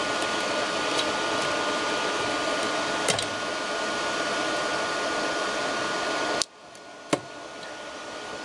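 CNC lathe machinery running with a steady whirring hum and a faint whine, cutting off abruptly about six and a half seconds in. A single sharp click follows under a second later.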